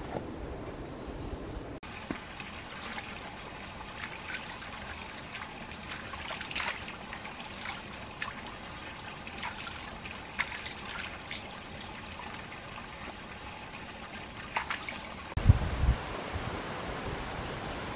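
Water trickling, with many small irregular splashes and drips. About fifteen seconds in the sound changes to a louder low rumble with a few thumps.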